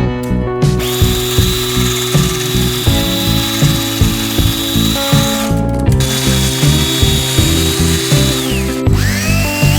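Background music with a steady beat, over the high whine of a power tool. Near the end the whine drops in pitch as the tool slows, then rises again as it spins back up.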